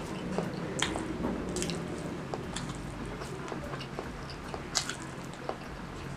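Close-miked wet chewing of rice and chili-sauced meatballs with the mouth closed: moist smacking and squishing sounds with scattered sharp clicks, the loudest about a second in and again near the end.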